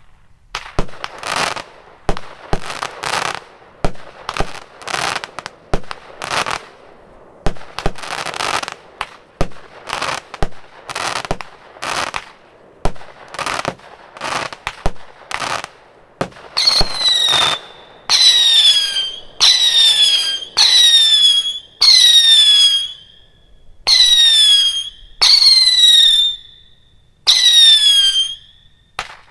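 A 64-shot, 0.8-inch firework cake (M13 Phoenix) firing shot after shot, about one or two a second, each with a sharp launch and a burst. From about halfway on, each shot carries a falling whistle lasting about a second.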